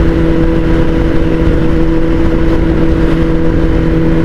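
Kawasaki ZX-10R inline-four with an Akrapovic full-system exhaust, running at a steady speed under way: a constant engine note that neither rises nor falls, over a heavy low rumble of wind and road noise.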